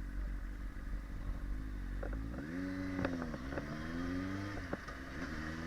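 Motorcycle engine accelerating through the gears: its pitch climbs, drops suddenly at two gear changes, then climbs again. Wind buffets the microphone in the first couple of seconds.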